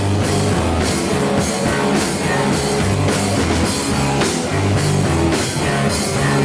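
Grunge rock band playing live: distorted electric guitar, bass and hard-hit drums in a steady driving beat, with no vocals.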